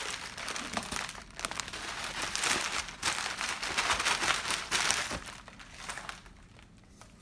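Packaging crinkling and rustling as a replacement laptop screen is taken out of it, stopping about five seconds in.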